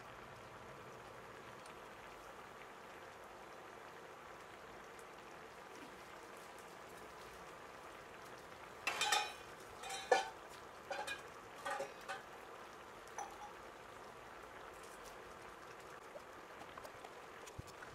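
Thick tamarind gravy with okra boiling in a pan, bubbles bursting over a steady faint hiss, with a run of louder pops and blips a little past the middle.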